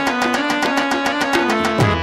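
Instrumental Gujarati devotional folk music from a ramamandal ensemble: sustained melody notes over a fast, even beat of percussion, with low drum strokes that slide down in pitch.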